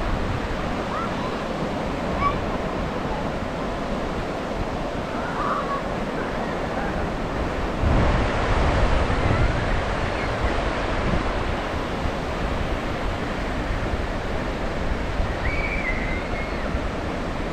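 Ocean surf washing onto the beach, a steady rush of breaking waves that swells louder about eight seconds in.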